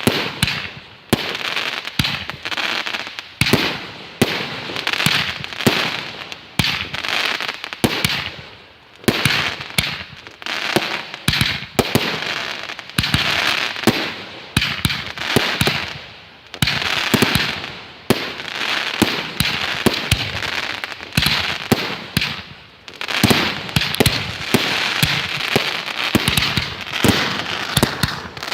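Fireworks display going off in a rapid, continuous barrage: many sharp bangs and pops every second, with crackling between them.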